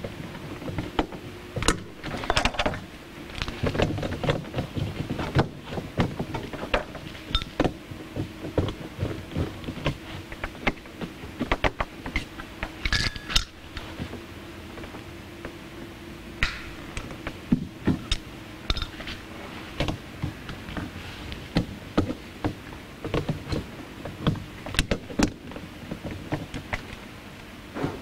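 Irregular clicks, taps and rustling from hands working a screwdriver and a bundle of wires while reconnecting the cables to a hot tub heater, over a faint steady hum.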